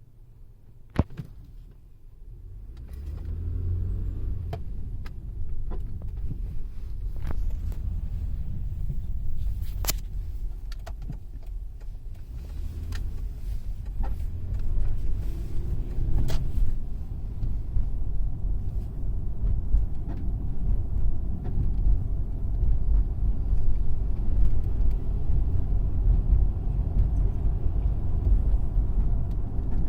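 Car rolling, a steady low rumble that builds a few seconds in, with scattered light clicks and ticks, after a single sharp click about a second in.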